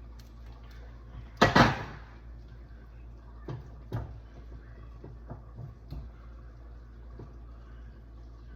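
Kitchen clatter: one loud bang about one and a half seconds in, then a few lighter knocks, over a steady low hum.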